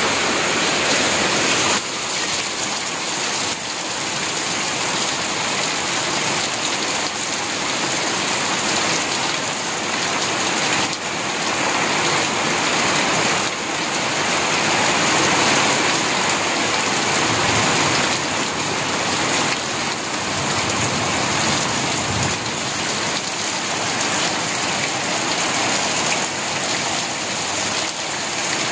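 Heavy tropical downpour falling hard on a corrugated roof and into a flooded yard: a dense, steady rush of rain.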